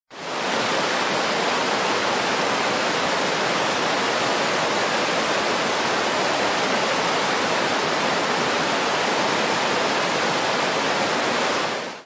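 Waterfall and rapids rushing over rocks: a steady, even roar of water that fades in at the start and dips out for a moment right at the end.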